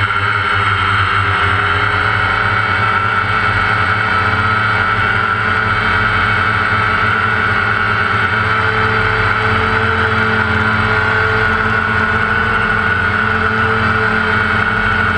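Quadcopter drone's motors and propellers heard from the drone itself while it hovers: a loud, steady multi-pitched whine, with one of the tones shifting slightly about halfway through.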